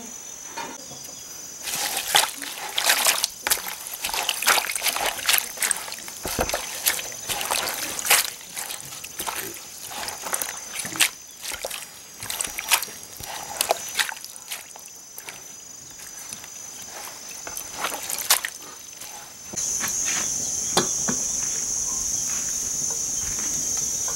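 Hands washing leafy greens and flowers in a basin of water: irregular splashing and sloshing. About 19 seconds in this gives way abruptly to a steady, high-pitched insect chorus.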